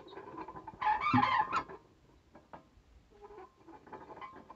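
Chickens clucking, with a rooster crowing once, loudly, about a second in, and fainter short clucks near the end.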